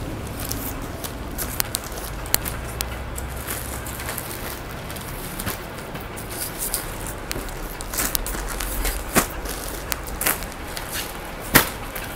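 Clear plastic wrapping on packed bedsheets crinkling and rustling as the packs are handled and patted, with scattered sharp crackles, the loudest a little before the end, over a steady low background hum.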